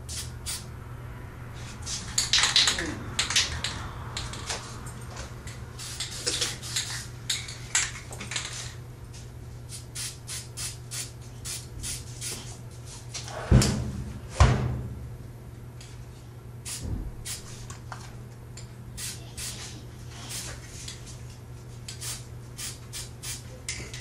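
Aerosol spray paint can being handled and sprayed: clicking rattles and short bursts of hiss, with two loud knocks about halfway.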